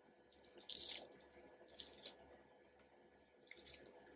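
Clear plastic film crinkling as it is handled and gathered over a quilt: three brief, faint crinkles.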